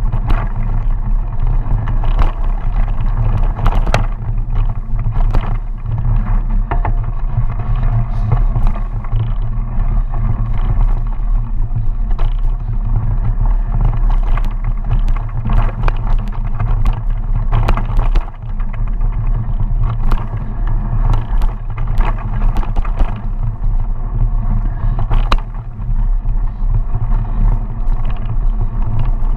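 Mountain bike riding fast down a dirt forest singletrack, heard from a handlebar-mounted camera: a steady low rumble of tyres and wind, with frequent sharp rattles and knocks as the bike goes over bumps.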